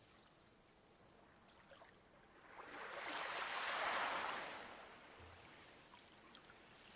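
A light wave washing up a pebble beach, swelling to a peak about four seconds in and then drawing back, with faint clicks of pebbles.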